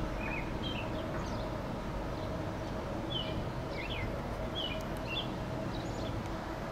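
A small bird chirps short, repeated two-note calls, about one every second, over a steady low outdoor rumble with a faint hum.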